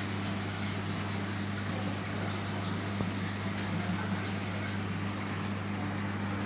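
Steady low electrical hum with an even hiss over it, from the pumps and machinery of an aquarium hall.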